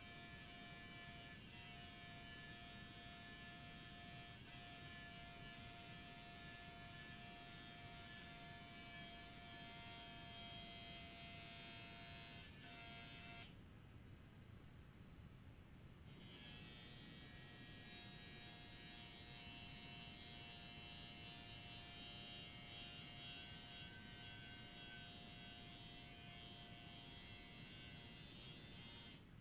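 Faint, steady whine of an electric grinder fitted with a small cutoff disc, sharpening a mower blade. It stops for about three seconds midway, then runs again.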